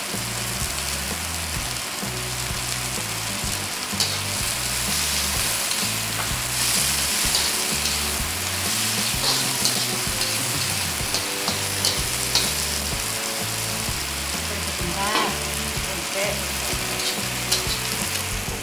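Baby corn and sliced chilies sizzling in hot oil in a wok while being stir-fried, with the metal spatula clicking and scraping against the pan every so often.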